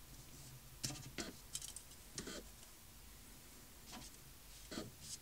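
Faint, scattered clicks and taps from a plastic Raspberry Pi case and its circuit board being handled as the board is freed by the case's release latch and comes out.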